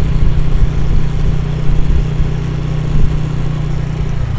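Honda motorcycle engine running steadily while being ridden at low speed, heard from the rider's seat as a continuous low hum.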